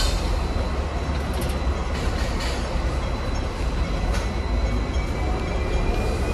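Hong Kong double-decker tram with VVVF traction running along its street track: a steady rumble of steel wheels on rail, a faint steady high whine and a few short clicks.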